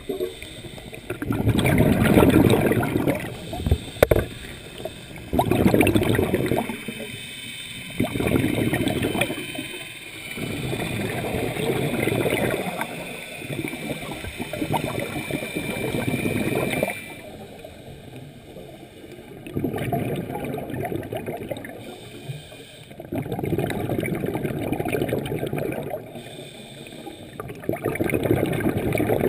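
Scuba diver breathing through a regulator underwater, heard through the camera housing: a rush of exhaled bubbles about every three to four seconds, with quieter stretches between breaths.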